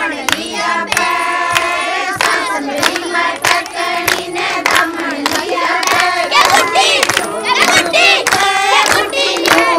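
Women singing a Haryanvi folk song together, with a steady beat of handclaps.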